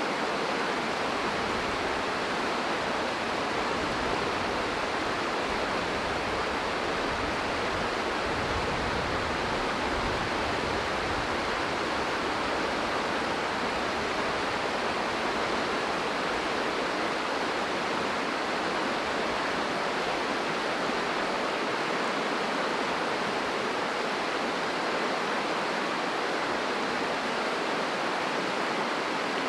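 River water rushing: a steady, even roar of fast-flowing water.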